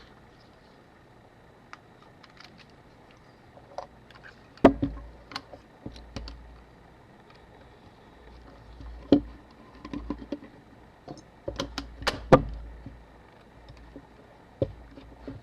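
Irregular small clicks and knocks of hand tools and small metal parts of a Canon AE-1 camera being handled and set down during disassembly, with a close run of clicks about twelve seconds in.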